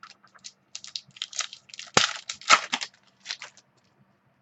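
Trading card pack wrapper crinkling and rustling as it is handled and torn open, with a sharp snap about two seconds in.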